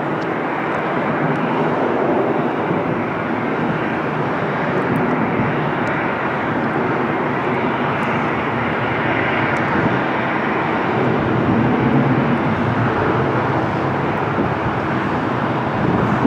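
Boeing 747 freighter's jet engines running, a loud, steady noise that holds at the same level throughout.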